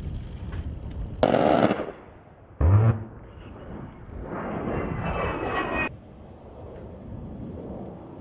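A-10 Thunderbolt II's twin turbofan engines passing, broken by two short, very loud bursts from its 30 mm GAU-8 Avenger cannon, a little over a second in and again under three seconds in. Later the jet noise swells and cuts off suddenly.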